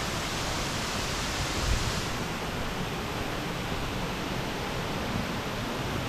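Steady rush of water tumbling over the cascades of a waterfall stream, with a brief low thump about two seconds in.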